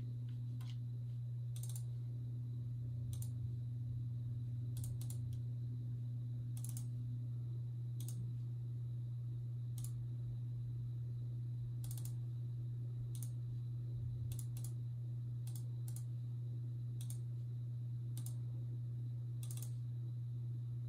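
Computer mouse clicking irregularly, roughly once a second with a few quick double clicks, over a steady low hum.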